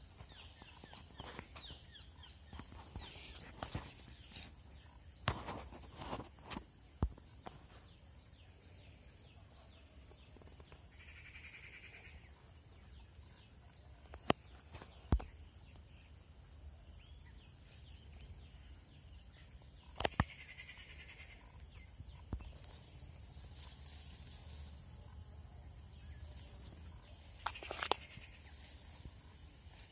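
Quiet outdoor garden ambience: a faint steady high hiss, scattered clicks and knocks from footsteps and handling among the plants, and two short calls, one about a third of the way in and one about two thirds in.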